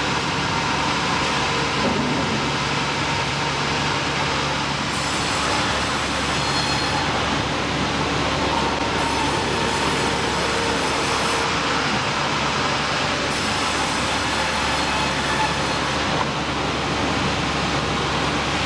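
Steady, dense industrial machinery noise that runs without a break, with a faint steady hum under it.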